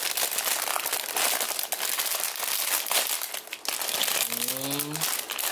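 Clear plastic bags holding model-kit runners crinkling and rustling as they are handled. A short low voice sound comes near the end.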